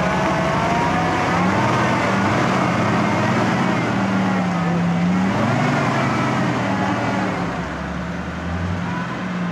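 Off-road 4x4's engine running hard under load, its revs rising and falling as it works over rough ground.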